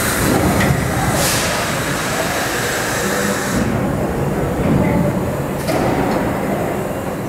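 Vintage New York City Subway train of R1, R4, R7A and R9 cars pulling out of an underground station at low speed, its wheels and motors running with a steady rumble. Two short hisses are heard, about a second in and near the end.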